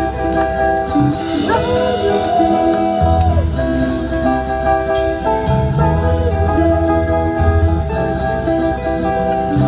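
Live rock band playing loud: electric guitar, bass and drums with regular cymbal hits. A woman's voice sings, holding one long wavering note about a second and a half in.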